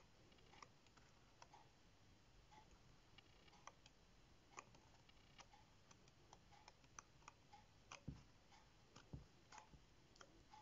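Faint, irregular clicks and light flicks of paper pages being turned on a pad of tear-off colouring bookmarks, with two soft thumps about eight and nine seconds in.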